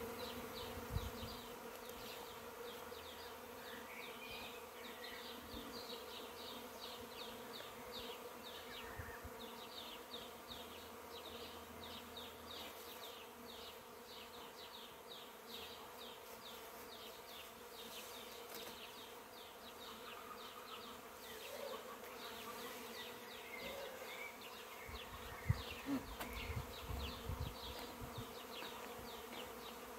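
Swarm of honeybees buzzing in flight: a faint, steady hum of many wings.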